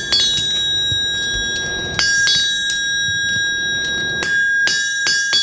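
Hand hammer striking a red-hot horseshoe on a steel anvil, about ten blows in loose groups, each leaving the anvil with a bright, lingering ring. The blows are evening up the shoe's heels.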